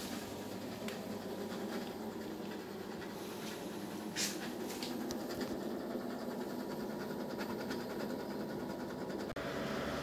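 Candy Superautomatic 98 washing machine running, its drum of wet towels turning with a steady mechanical hum and scraping rumble. A single sharp click about four seconds in, and the sound changes abruptly just after nine seconds.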